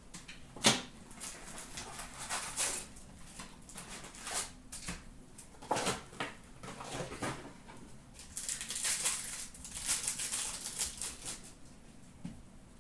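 Cardboard trading-card retail box being torn open and foil card packs handled: rustling and crinkling with scattered sharp crackles, and a longer run of crinkling about nine seconds in.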